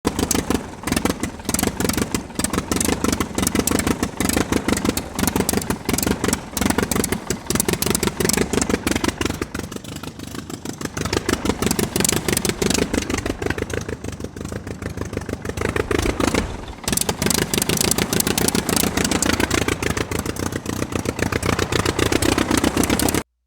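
Mini diesel engine running fast with a rapid clattering beat, its speed dipping and picking up again a few times, then stopping abruptly near the end.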